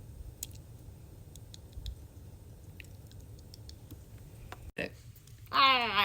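A few faint clicks over quiet room noise, then near the end a person's voice makes a loud, wavering vocal sound whose pitch falls and then wobbles, as a made-up noise answering a pulled face.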